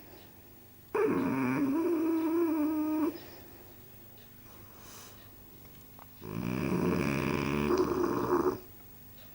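Bulldog snoring loudly: two long snores of about two seconds each, the first with a steady whining tone running through it.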